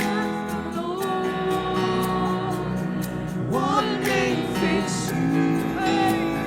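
Live gospel worship music: held instrumental chords under a singing voice with a slow line that bends in pitch about midway.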